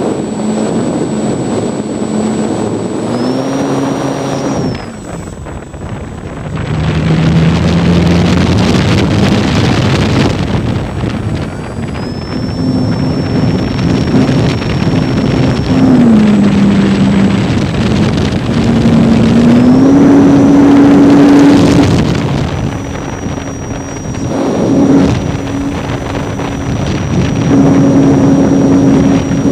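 Electric motor and propeller of a ParkZone T-28 radio-controlled warbird, heard from a camera mounted on its wing in flight: a steady motor hum that rises and falls in pitch several times as the throttle changes, over a rush of wind on the microphone.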